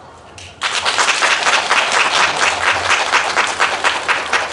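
Audience applauding, breaking out suddenly about half a second in and going on as dense, steady clapping.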